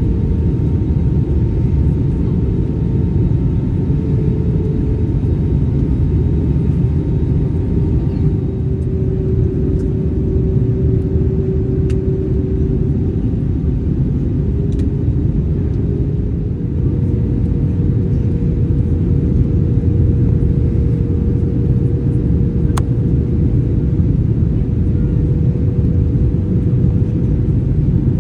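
Airbus A321 in flight, heard from the passenger cabin: a loud, steady rumble of engines and airflow, with a faint engine hum that shifts slightly in pitch a few times.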